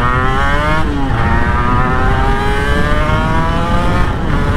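Honda NSR250R MC21's two-stroke V-twin engine accelerating hard, pitch climbing through each gear, with an upshift about a second in and another about four seconds in. Wind rush underneath.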